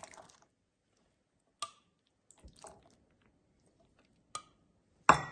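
A steel ladle scooping thick pea curry out of a steel pot and pouring it into a bowl: a handful of short clicks and wet squelching plops, the loudest near the end.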